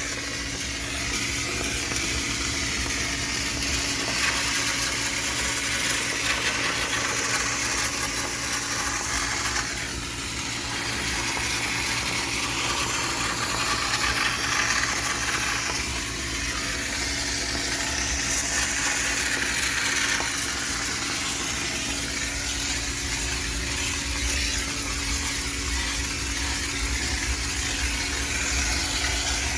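High-pressure steam cleaner running steadily to sanitize a washing machine: a continuous hiss of the steam jet over the steady hum of the machine, the hiss changing in tone a few times.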